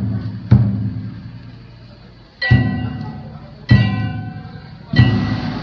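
Festival hayashi percussion: a deep drum and a ringing metal gong struck together four times, each stroke decaying before the next, the later ones about a second and a quarter apart.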